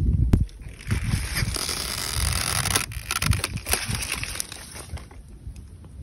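Wind rumbling in gusts on the phone's microphone, with rustling and a few sharp clicks from hands moving through the sea kale plants.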